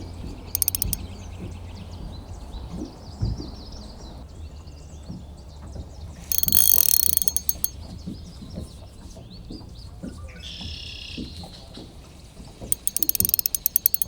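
Drag of a Shimano Vanquish CE spinning reel clicking rapidly in three bursts as a hooked fish pulls line: a short burst near the start, another about halfway through, and a longer one near the end. Birds chirp faintly between the bursts.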